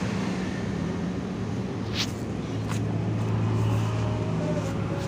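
A steady low hum, like an engine running, with a few short clicks about two seconds in and again near the end.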